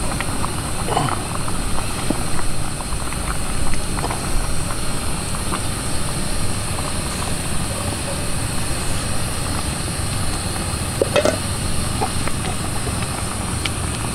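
Portable butane gas camping stove burning under a pot, running steadily as a low rumble with hiss, with a few light clicks and knocks as pieces of food are dropped into the pot.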